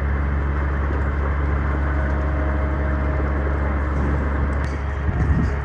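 A motor vehicle engine running with a steady low hum amid street noise, with a few sharp knocks near the end.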